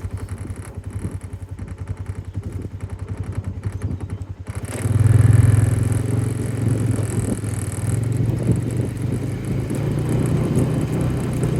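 A vehicle engine running with a fast, even pulse. About four and a half seconds in it gets much louder and stays up, as if given throttle.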